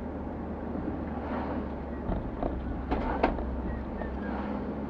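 Steady engine and road rumble heard from inside a moving car, with two sharp clicks close together about three seconds in.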